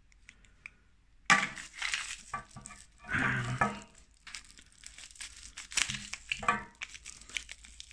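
Plastic bubble wrap crinkling and crackling in irregular bursts as a wrapped stack of coin capsules is handled, starting about a second in.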